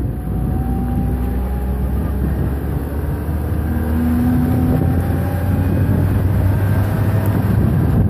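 Vehicle engine running steadily while driving along a rutted dirt road, with a low rumble from the tyres and wind on the microphone.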